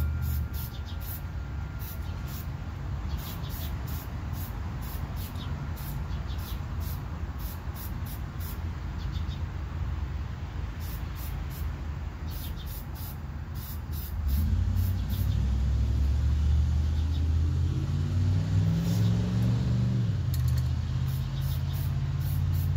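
A motor vehicle's engine running, growing louder about two-thirds of the way in as its pitch rises, then falling back suddenly near the end. A regular high chirping of insects goes on throughout.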